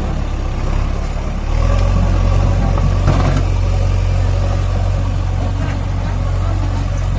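JCB backhoe loader's diesel engine running steadily, growing louder about one and a half seconds in.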